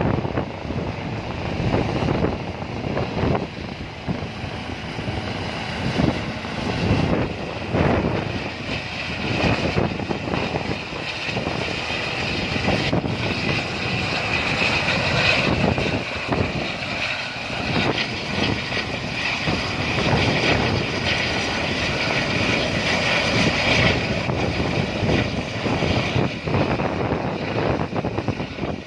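A helicopter running close by: steady rotor and engine noise.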